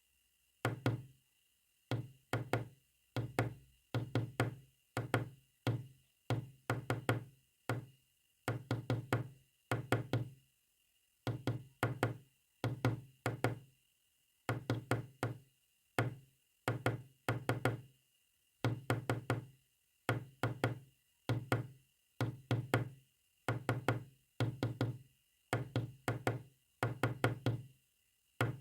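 Knocking in short runs of a few quick raps, roughly one run a second, with pauses between runs, tapped out as Morse code. A faint steady high tone runs underneath.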